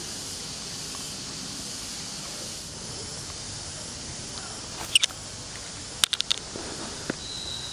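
Steady high-pitched hiss of outdoor forest ambience, with a few sharp clicks about five seconds in and a quick cluster of clicks around six seconds. A faint high tone comes in near the end.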